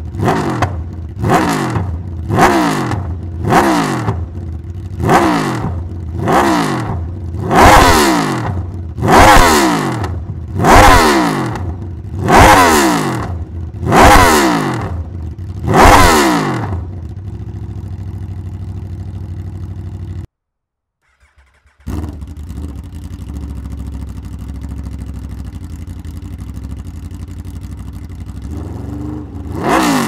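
Aprilia RSV4 1100's V4 engine breathing through an SC-Project GP-22 titanium exhaust, blipped through about a dozen quick throttle revs that each rise sharply and fall away, growing louder, then settling to a steady idle. After a brief cut to silence it idles again, and a rev starts to build near the end.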